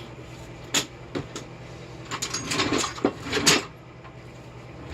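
A few sharp knocks and clicks, then a burst of clattering knocks about two to three and a half seconds in, over a steady low hum.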